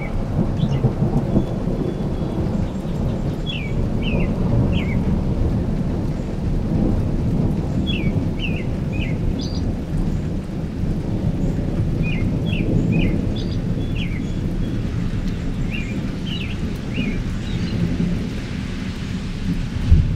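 Long, low rumble of rolling thunder with rain, while a bird chirps in short runs of three or four notes every few seconds.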